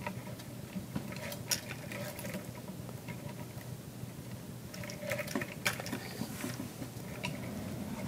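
Statue's small metal chain clinking and rattling faintly as it is worked through the figure's hands, in scattered light clicks that come thickest about five to six and a half seconds in, over a low steady hum.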